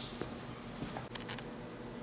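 Quiet room tone with a brief rustle at the start and a few faint light clicks about a second in.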